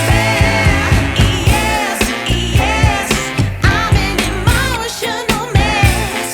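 Background pop music: a sung vocal over a steady drum beat.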